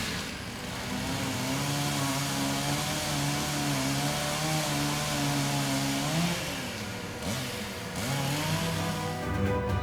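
An engine running steadily; its speed drops and picks up again twice a little past the middle, then it holds steady.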